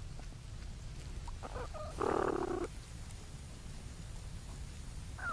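Young platypuses in their nesting burrow, picked up by a microphone inside the chamber: a steady low rumble with a few short squeaks, and a brief louder noise about two seconds in.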